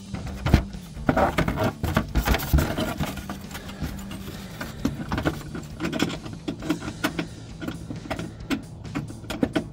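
Hand ratchet clicking in short, irregular runs, with knocks of the metal tool, as a bolt on a headlight's lower mounting bracket is tightened in a tight space.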